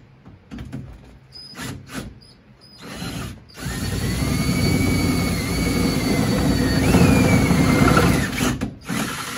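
Cordless drill boring through the car's sheet-metal body: a few short trigger bursts, then about five seconds of steady drilling with a high squeal from the bit, whose pitch jumps up about two-thirds of the way through before the drill stops.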